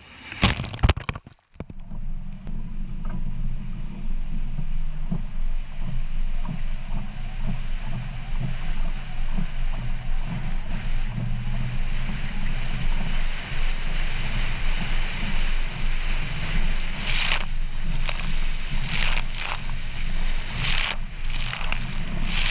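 A Ford SVT Raptor pickup crashes through a mud puddle with a loud splash, then its engine runs steadily under load, heard from the hood, as it drives through a muddy trail. In the last few seconds several sharp splashes of muddy water hit the hood as it takes more puddles.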